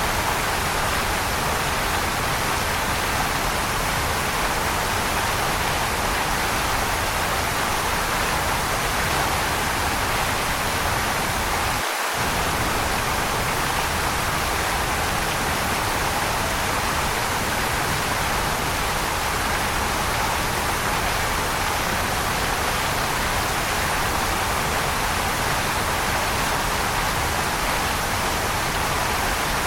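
Waterfall rushing steadily, a dense even hiss of falling water with no change in level. The low rumble drops out for a split second about twelve seconds in.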